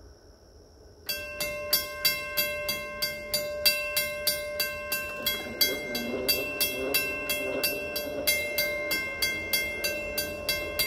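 Western-Cullen-Hayes mechanical crossing bell starts ringing about a second in, struck about three times a second with a clear, bright ring. It marks the crossing signals activating for an approaching train.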